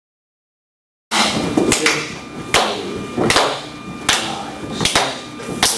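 Hands clapping a steady beat for dance practice, about one sharp clap every 0.8 seconds, starting about a second in after silence.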